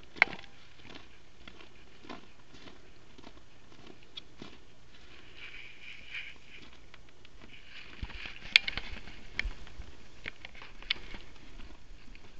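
Footsteps crunching on packed snow at a walking pace, about two steps a second, with a few sharper clicks and knocks. The sharpest click comes about eight and a half seconds in.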